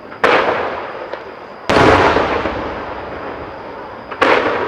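Aerial firework shells bursting overhead: three sharp booms, the second about a second and a half after the first and the third about two and a half seconds later. Each boom trails off in a long rolling echo.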